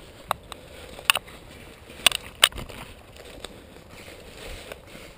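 Four or five sharp, short cracks at uneven intervals in the first half, over faint rustling.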